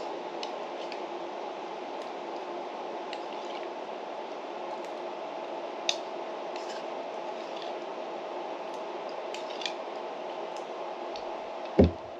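Spoon scraping and clicking against a lacquered bowl, with soft wet eating sounds as yogurt is spooned up and eaten, over a steady room hum. A single thump near the end as the bowl is set down on the table.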